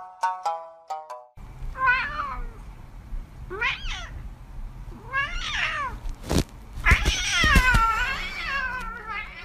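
A run of bright music notes ends about a second in. A domestic cat then meows four times, each call rising and falling in pitch, the last one longer, with a few sharp knocks near the middle and a low rumble underneath.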